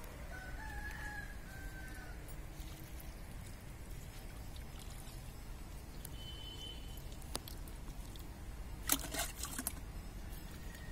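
A rooster crows once near the start, a call of about a second and a half that rises a little and then falls. About nine seconds in comes a short, loud splashing burst as water is poured from a small steel pot into the soil around a freshly planted pepper seedling.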